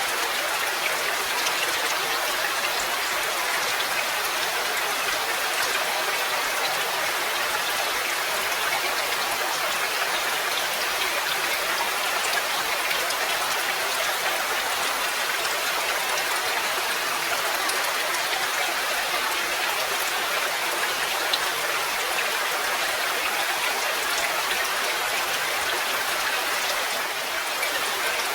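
Steady rain falling, a dense, even patter of many drops that keeps up without a break.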